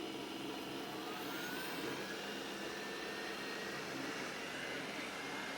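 iRiver INR-100 robot vacuum running in spot-cleaning mode: a steady fan and brush hum with a thin whine that climbs in pitch over the first couple of seconds as the suction motor spins up.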